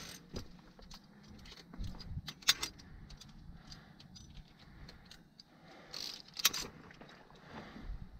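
Clinking of metal climbing gear, such as carabiners, in a few sharp separate clinks: one about two and a half seconds in, and more a little after six seconds.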